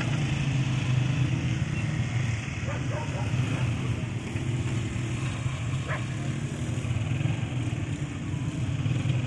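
Diesel locomotive engine idling with a steady low rumble, with a single faint click about six seconds in.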